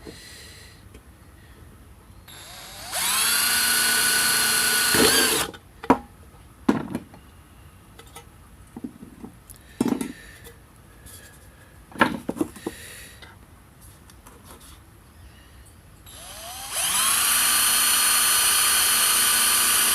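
Electric power drill run twice: it spins up to a steady whine about 3 seconds in and stops after about two and a half seconds, then after a series of clicks and knocks it spins up again near the end and keeps running.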